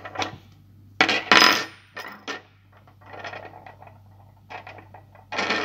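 Steel axle shafts and small parts of an RC crawler axle clinking and clattering as they are handled and set down on a wooden table, with the loudest metallic clink about a second in, then softer handling noises.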